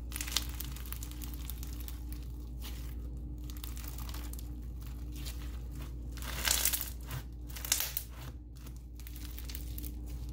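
Floam slime packed with small foam beads being squeezed, pressed and stretched by hand, with a continuous crackling crunch from the beads and a louder burst of crunching about six and a half seconds in. The slime tears easily as it is stretched, which the owner puts down to a rubbery base that could be overactivated.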